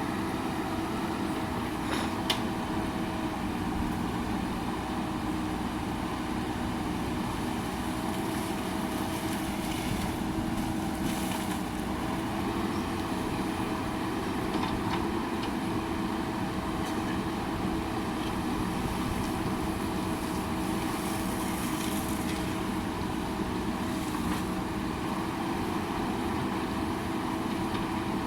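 JCB backhoe loader's diesel engine running steadily under work, with a steady whine over the engine noise. There is one sharp knock about two seconds in.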